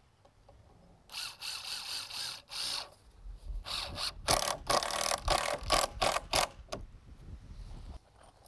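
Cordless drill driving screws into pressure-treated lumber: a run of about two seconds, a short pause, then a longer, louder run that ends in several short spurts.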